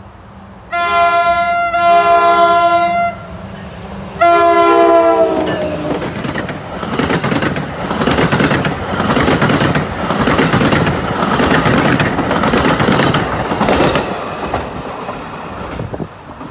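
Passenger train's multi-note air horn sounds a long blast, then a second blast whose chord drops in pitch as the locomotive passes. The passing train of bi-level coaches follows, wheels clickety-clacking over the rail joints.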